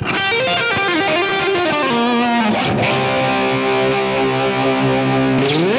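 Distorted electric guitar playing a short solo phrase of bent, wavering notes, then holding a chord that slides upward and fades near the end.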